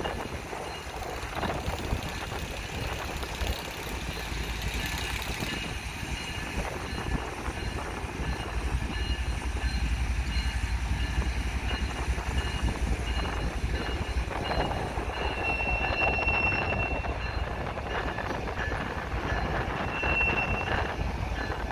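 Freight train rolling past with a steady low rumble of cars on the rails. Wheels squeal briefly on a high note twice, about two-thirds of the way through and again near the end, as a diesel locomotive comes up alongside.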